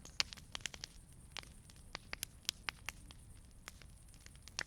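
Wood campfire crackling: irregular sharp pops and snaps, several a second, over a faint low rumble of the burning fire.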